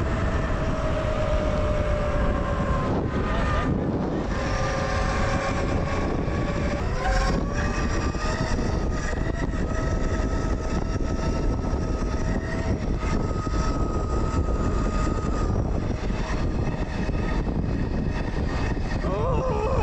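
Zero FX electric motorcycle riding at speed: the electric drive's steady whine eases down in pitch, then rises again about seven seconds in, over heavy wind rumble on the microphone.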